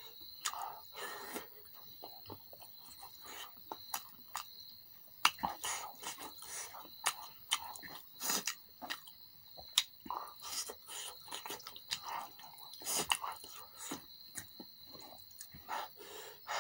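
Close-up eating sounds: open-mouthed chewing with wet smacks and many sharp, irregular clicks of lips and tongue, as spicy chicken and boiled egg are eaten by hand.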